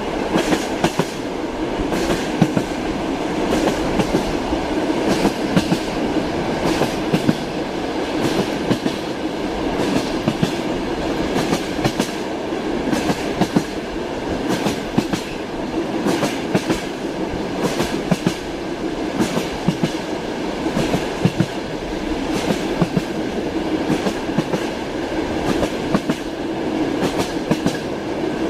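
Train running along the rails: a steady rumble with the repeated clack of wheels passing over rail joints.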